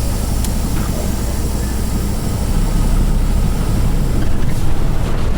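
Semi truck's diesel engine running with a low drone, under a loud steady rushing noise.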